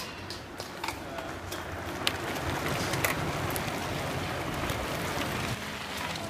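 A group of mountain bikes rolling past over cobblestones: a rush of tyre noise that builds as they come close and peaks about three seconds in, with sharp clicks and rattles from the bikes.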